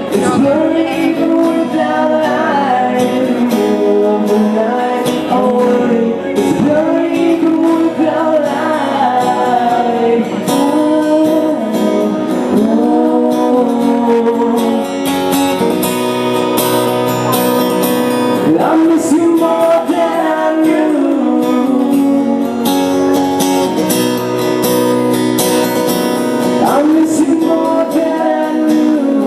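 Acoustic guitar strummed steadily, with a voice singing over it.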